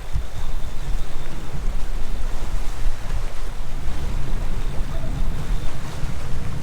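Steady low rumble of wind buffeting the microphone on a small boat on open water, with water noise underneath.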